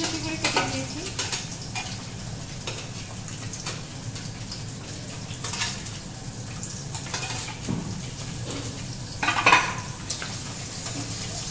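Oil sizzling in a metal kadai as chopped onion, ginger and garlic go in, with a metal spatula scraping and clinking against a steel plate and the pan. A louder clatter comes about nine and a half seconds in.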